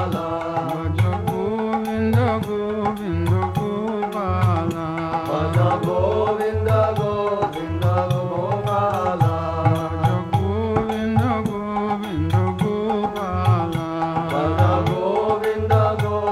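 Devotional bhajan music in an instrumental passage with no sung words: a gliding melody over steady hand-drum strokes.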